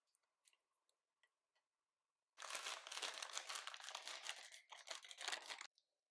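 Disposable plastic piping bag crinkling as it is gathered up and handled, for about three seconds starting a little over two seconds in and cutting off abruptly. Before that there are only faint small ticks.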